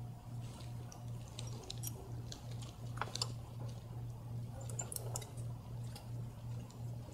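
Faint, irregular metallic clicks and ticks from a T30 Torx driver turning the high-pressure fuel pump's mounting bolts in a little at a time, over a low hum that pulses evenly several times a second.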